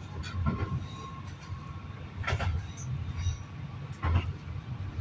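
Cabin noise of a moving SA133 diesel railbus: a steady low running rumble, with three sharp knocks from the wheels and track about two seconds apart.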